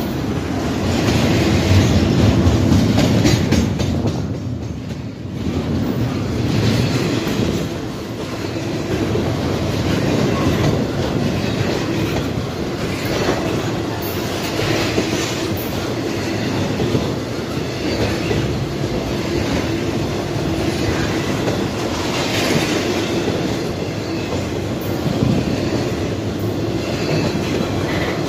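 Norfolk Southern intermodal freight train's cars rolling past close by: steady rumble of steel wheels on rail with irregular clicks and clunks as the trucks pass over the rail joints, dipping briefly about four seconds in.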